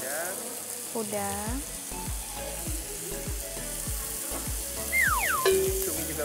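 Beef slices and a sausage sizzling on a hot tabletop grill pan as shrimp are added. About five seconds in, a brief falling tone is heard, then a short steady one.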